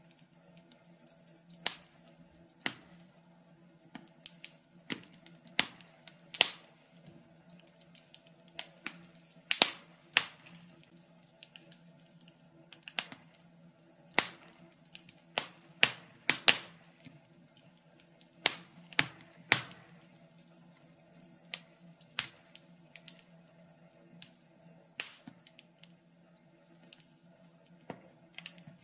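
Wood fire crackling: burning logs giving off irregular sharp pops and snaps, roughly one every second, some louder than others.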